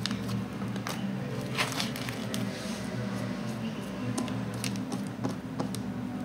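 Slime squished and kneaded by hand on a tabletop, giving scattered small sticky clicks and crackles, over a steady low hum.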